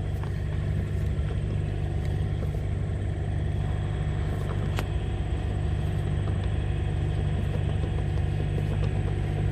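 Engine idling steadily, with a single faint click about five seconds in.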